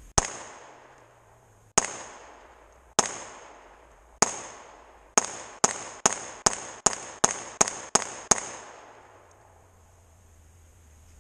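Springfield Hellcat 9mm pistol fired thirteen times: four spaced shots, then nine rapid shots at about two and a half a second, each shot trailing off in echo through the trees.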